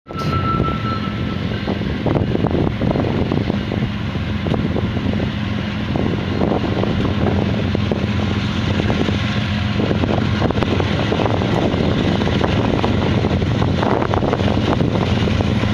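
GE diesel-electric locomotives heading a double-stack intermodal freight train approach under power, their engines a steady low drone over the rumble of the train. It grows slightly louder as they come nearer.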